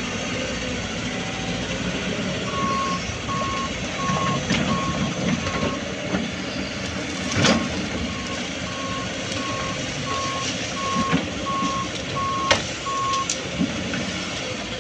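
A 20-ton-class excavator's diesel engine running, with its travel alarm beeping at one steady pitch, about one and a half beeps a second, while the machine moves. There are a few sharp knocks, the loudest about halfway and near the end.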